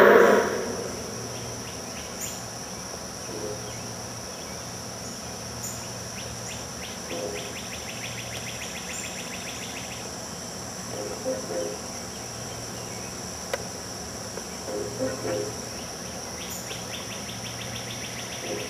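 Insects chirping: a steady high trill throughout, with two stretches of rapid pulsed chirping, about six seconds in and again near the end. A louder sound dies away at the very start.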